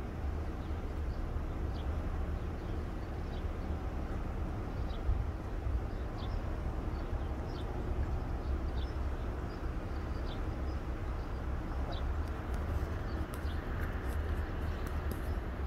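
Outdoor street ambience: a steady low rumble, with small birds chirping briefly every second or so.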